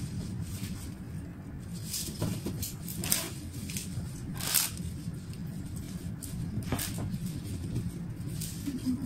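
Cut flower stems and leaves rustling as they are handled and settled into a glass vase, a few short rustles over a steady low hum.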